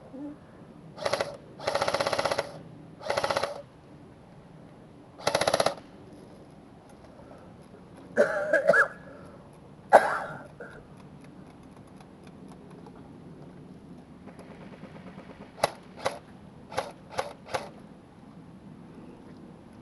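Airsoft electric rifles firing: four short full-auto bursts in the first six seconds, a few more shots around the middle, then five quick single shots near the end.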